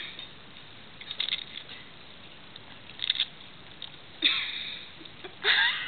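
Tabby cat crunching and chewing a Ritz cracker in a few short bursts, with a brief voice near the end.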